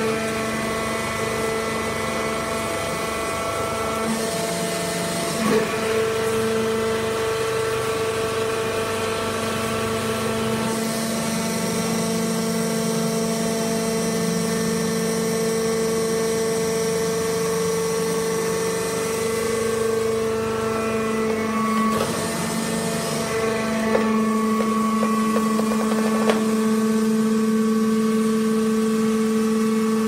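Hydraulic baling press for wood shavings running: a steady motor-and-pump whine that shifts in pitch several times as the ram cycles, with a few short knocks.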